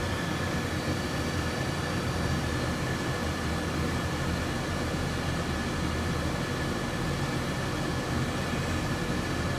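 Hot air rework station blowing a steady hiss of air onto a MacBook logic board while a capacitor is replaced, with a faint steady whine.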